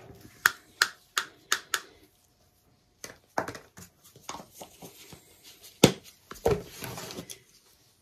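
Paint cups and a stir stick handled on a table: five quick sharp taps in the first two seconds, then after a pause a few more clicks and knocks, a loud single clack about six seconds in and a brief rustle after it.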